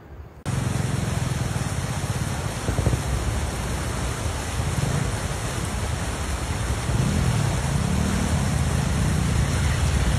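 Motor vehicle engines running under a loud steady hiss, cutting in abruptly about half a second in, with a low rumble that swells and fades.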